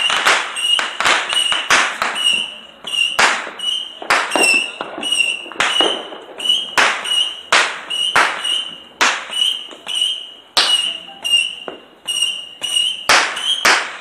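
Fireworks going off around the neighbourhood: a rapid, irregular string of loud cracks and bangs, about two a second, with a high steady tone sounding behind them in short stretches.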